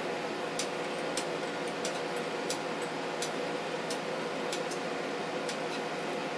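Steady whirring and hum of several powered-up bench test instruments' cooling fans. Light, sharp clicks come through it about once every half second to second.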